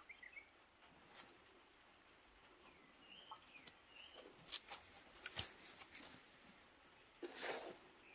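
Faint, quiet outdoor scene: small birds chirp a few times in the background, over soft clicks and rustles of gloved hands working soil in a styrofoam box. A louder, brief scraping rustle comes about seven seconds in.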